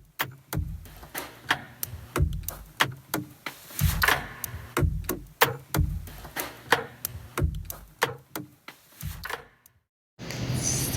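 A quick, irregular series of sharp clicks and knocks, about two to three a second, some with a low thump, stopping a second or so before the end.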